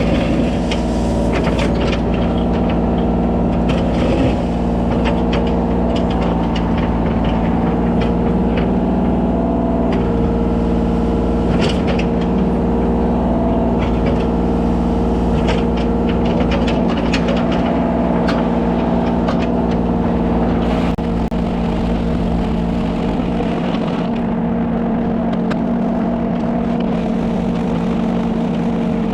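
Kubota mini excavator's diesel engine running steadily under load, with occasional clanks and knocks from the machine working gravel. About two-thirds of the way through the engine note shifts and drops slightly.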